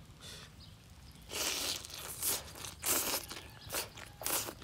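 Mouth sounds of eating shredded green papaya salad: chewing and slurping in strands, heard as a run of short, irregular noisy bursts starting just over a second in.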